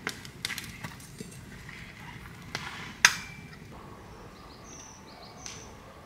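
A few sharp clicks and knocks, the loudest about three seconds in with a short ringing tail. Then a few short, high bird chirps over a quiet outdoor background.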